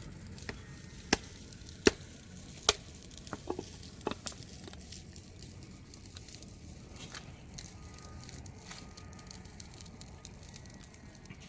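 Stones knocking together as a stone wall is laid by hand: a handful of sharp clacks in the first four seconds or so, then only faint ticks, over a low steady rumble.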